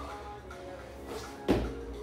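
Background music playing, with one loud thud about one and a half seconds in as a person drops down onto an exercise mat on a wooden floor into a push-up position, as in a burpee.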